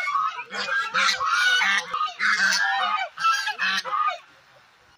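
A flock of domestic geese honking, many calls overlapping, falling quiet about four seconds in.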